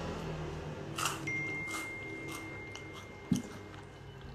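Quiet sounds of a person eating with his fingers: chewing and soft mouth clicks, with a single low knock about three seconds in, over a low steady room hum. A thin, faint high tone holds for about two seconds in the middle.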